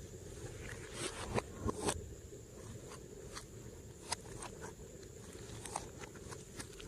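Glossy slime being squished and stretched by hand, giving a string of small, sharp sticky clicks and pops over a faint low hum.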